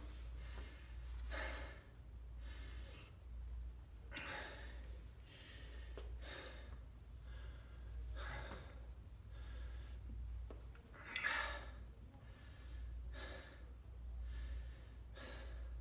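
A man breathing hard through his mouth, out of breath after a set of high knees, with a heavy exhale about every two seconds; the loudest comes a little past the middle.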